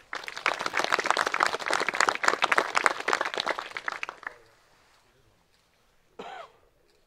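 A small crowd clapping for about four seconds, the applause tailing off, then a single short voice calling out about six seconds in.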